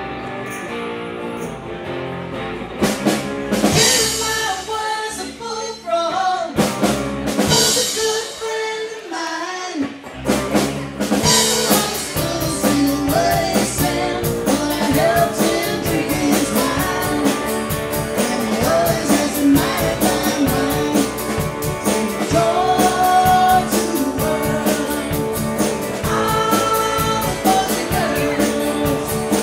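Live band playing a rock song with guitar and singing: held chords and cymbal crashes at first, then the full kit comes in with a steady beat about ten seconds in.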